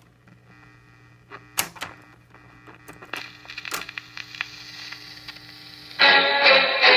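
1950 Ristaucrat 45 rpm record changer cycling after the record is rejected: a series of mechanical clicks and clunks as the tone arm lifts and the next 45 drops onto the platter, over a steady amplifier hum. About six seconds in, the next record starts playing, music with singing.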